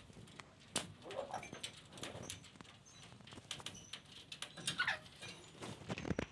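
African grey parrot making quiet clicks and many very short high chirps, with one falling call about five seconds in, amid scattered taps.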